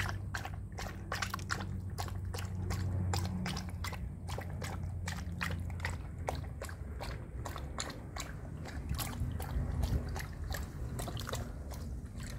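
A poodle lapping water from a shallow plastic paddling pool: a steady run of wet laps, about three or four a second, over a low steady hum.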